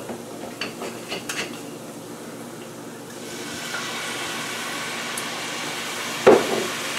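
Red wine poured into a hot skillet of browned onions, setting off a steady sizzle from about three seconds in as the wine hits the pan. A few light clicks come before it, and there is a sharp knock near the end.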